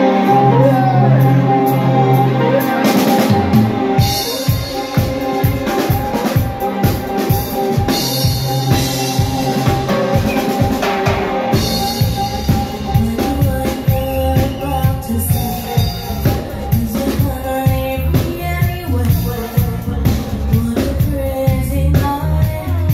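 Live reggae band playing with a woman singing: a held bass note for the first few seconds, then the drum kit comes in with a steady beat.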